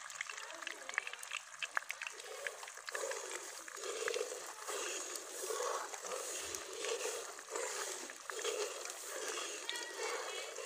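Sugar, ghee and water boiling into syrup in an aluminium karahi, crackling and bubbling, with a metal slotted spatula stirring it. From about three seconds in the stirring strokes swish through the liquid in a steady rhythm, about one and a half strokes a second.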